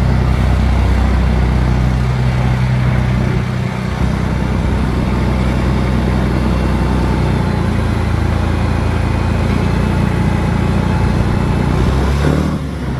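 Large engine of the lifting equipment running steadily under load while a heavy unit is raised. Its pitch shifts a few times, then drops and eases off near the end as the load lands.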